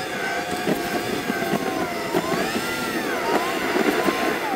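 Opel Astra H 1.6 engine running on LPG, heard from inside the car in fast-forward. Its note is high and sweeps quickly up and down several times as the revs rise and fall.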